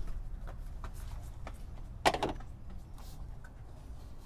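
A few faint clicks and one sharper knock about two seconds in as a gloved hand works the already-loosened bolt out of the fuel filter's top fitting.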